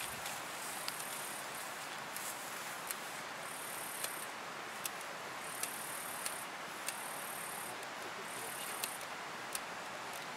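Field ambience of insects chirping in the grass: a very high buzz that comes and goes about every second and a half, over a steady hiss, with scattered faint sharp clicks.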